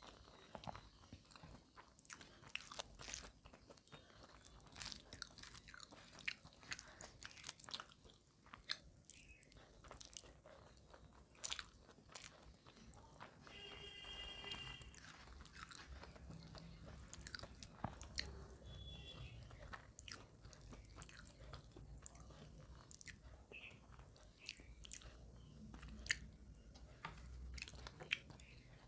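Faint, close-miked mouth sounds of someone eating rice and curry by hand: soft chewing with scattered lip smacks and clicks, and a short hum about halfway through.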